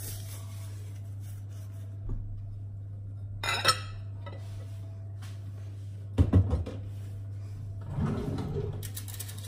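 Kitchen handling sounds over a steady low hum: a glass bowl clinks as it is moved about three and a half seconds in, a couple of heavy knocks follow a little past halfway, and a drawer slides open near the end.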